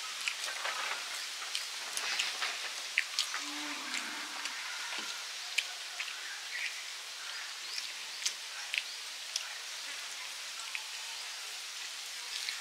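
Eating by hand: fingers mixing rice and mashing boiled egg on metal plates, and chewing, heard as many short scattered wet clicks over a steady hiss.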